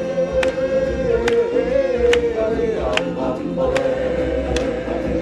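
Show music: a choir holds one long sung note over a steady drum beat, a little more than one hit a second.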